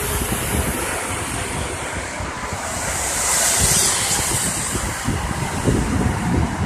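Steady roar of multi-lane expressway traffic passing below, tyre hiss and engines blended together, with wind buffeting the microphone. The hiss swells louder about halfway through.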